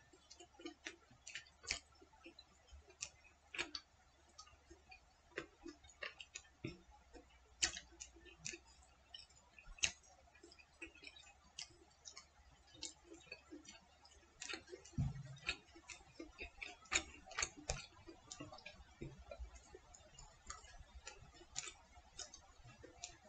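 Light, irregular clicks and taps of wooden chopsticks against a plate and a small bowl during eating, with a soft thump about fifteen seconds in.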